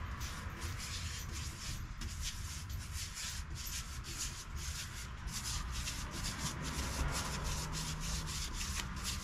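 Polyurethane being spread over painted pine boards in quick, even back-and-forth strokes, about four a second, each a short scratchy rub of the applicator on the wood.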